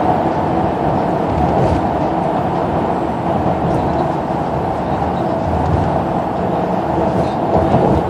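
Steady road and engine rumble inside a moving coach bus cabin at highway speed.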